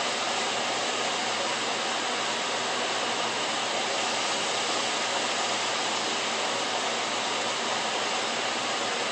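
Kitchen fan running with a steady whoosh, switched on to clear smoke from a steak searing on a stovetop grill pan.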